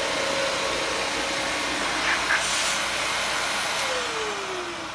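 Household vacuum cleaner running with a steady whine. About four seconds in, the whine falls in pitch and the sound gets quieter as the motor winds down.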